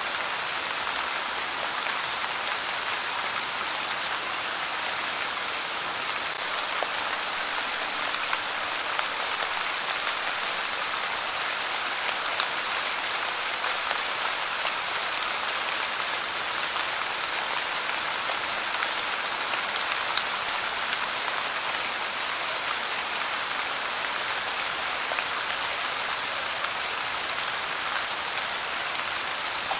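Steady light rain, an even hiss of falling drops with faint ticks of single drops landing.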